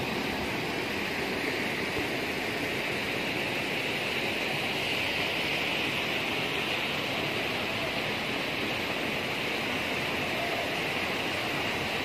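Rushing water of a shallow, rocky stream pouring over stones: a steady, even rush with no breaks.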